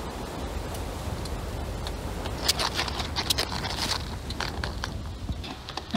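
Low, steady rumble of wind on the microphone, with scattered rustling and clicking from about two seconds in.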